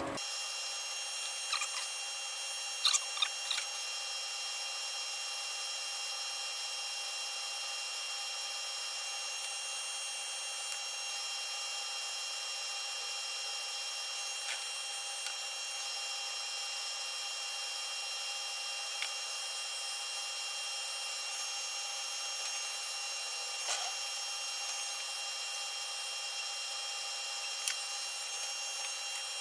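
Metal lathe turning steadily at slow speed, with a steady whine, while a hand-held lap charged with garnet abrasive in oil rubs along a hardened sine-plate roll to lap it to size. A few sharp clicks come about two to three seconds in.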